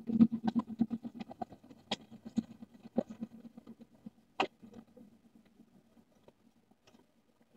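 Wheels of a slow-moving train clicking and knocking over the rail joints, with a low diesel locomotive hum underneath, thinning out and fading after about five seconds as the train draws away.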